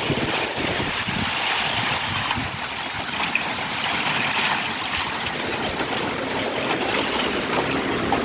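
Strong wind blowing hard in a storm, a continuous rushing noise with gusty low rumbling from wind buffeting the microphone.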